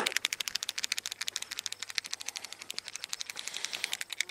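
Queen-marking paint pen being shaken, the mixing ball rattling inside in rapid, even clicks to stir the paint before marking a queen bee.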